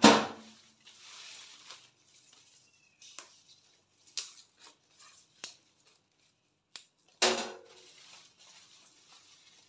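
Fresh cassava leaves rustling as they are picked through and moved by hand, with scattered light clicks and two louder bursts of rustling, one at the very start and one about seven seconds in.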